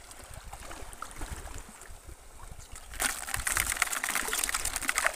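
Shallow seawater sloshing and splashing, quiet at first and then suddenly louder from about three seconds in, full of small crackling clicks.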